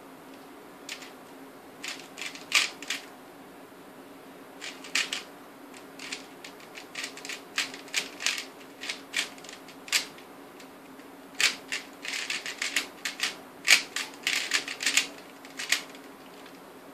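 Plastic 3x3 speed cube turned fast by hand, its layers clicking in quick bursts with short pauses between them: last-layer orientation (OLL) algorithms being executed.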